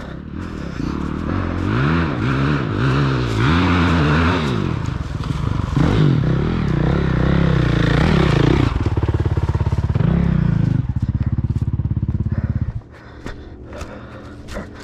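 Dirt bike engine revving up and down as the rider works the throttle under load on a rocky trail climb, then running steadier at higher revs. The engine sound drops away sharply about thirteen seconds in.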